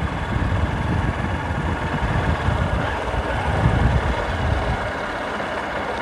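Motorcycle riding slowly along a dirt track: a steady low rumble of engine and road noise.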